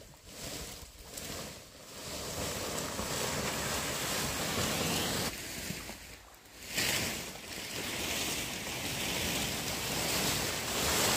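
Rustling and swishing of large fan-palm leaves being gathered and dragged: a rough hiss that swells and eases, dipping briefly about six seconds in.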